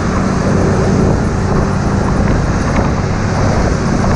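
Old Mercedes-Benz truck's diesel engine running steadily as the truck drives along, close by, with road and traffic noise.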